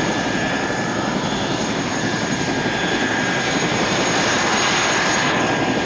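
Grob 109B motor glider's propeller engine running steadily at low taxiing power.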